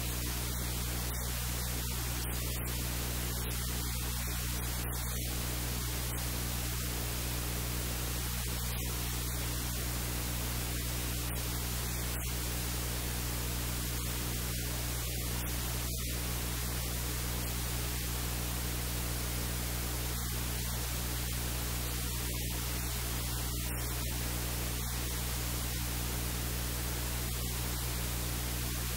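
Steady static hiss over a low electrical hum with evenly spaced overtones, unchanging throughout.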